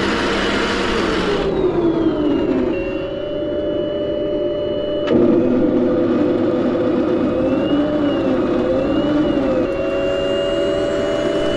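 A Heng Long M1A2 Abrams RC tank's onboard sound unit playing its engine sound effect through the small speaker. The pitch falls and settles to a steady hum about two seconds in, steps up louder about five seconds in, and wavers up and down briefly near nine seconds. A broad rush of noise stops about a second and a half in.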